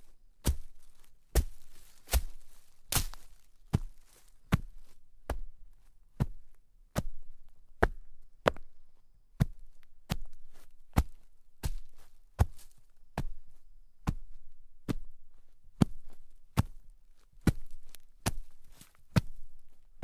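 Footsteps crunching through shallow snow at a steady walking pace, a little more than one step a second.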